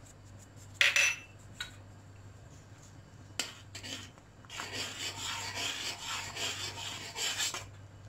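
Metal spoon scraping and stirring in a stainless steel pot of boiling milk, with a sharp metallic clink about a second in and steady scraping over the second half.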